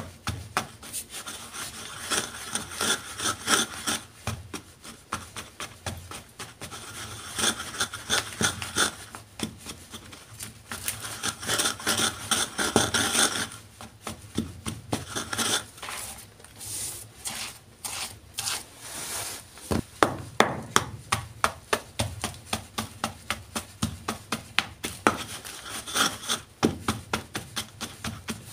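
Wooden stick grinding and crushing soft gym chalk powder in a round container: long stretches of gritty scraping and crunching. Regular pounding strokes, about two a second, fill the second half.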